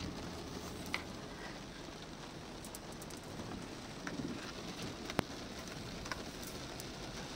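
Rain falling on a car's roof and windscreen, heard from inside the car: a steady hiss with a few sharp ticks from single drops.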